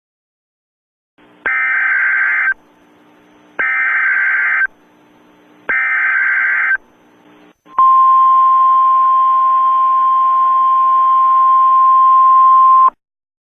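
Emergency Alert System activation. Three buzzing one-second bursts of SAME header data tones about two seconds apart, then the National Weather Service's single steady 1050 Hz warning alarm tone, held for about five seconds before a warning is read.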